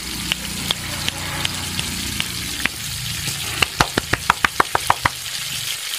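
Skewered potato corn dogs deep-frying in a wok of hot oil: a steady sizzle with scattered pops and crackles. Past the middle comes a quick run of about ten sharp clicks, some six or seven a second.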